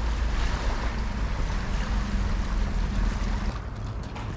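Wind rumbling on the microphone at the water's edge, with a faint steady drone for a couple of seconds in the middle; about three and a half seconds in the sound changes and the hiss above the rumble drops away.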